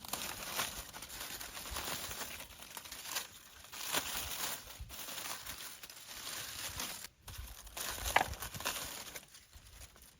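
Irregular rustling and crinkling with scattered small clicks.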